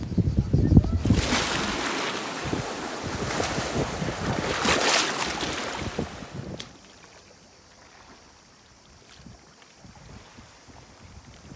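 Sea waves washing over a rocky shore: a loud hiss of surf that swells twice, with wind buffeting the microphone at the start. About six and a half seconds in it drops to a much fainter wash of water.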